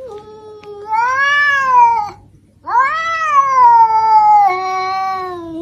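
Tabby house cat yowling in two long drawn-out meows. The first rises and falls and breaks off about two seconds in. The second starts about half a second later and slowly sinks in pitch. It is a startled cat's complaint after being frightened.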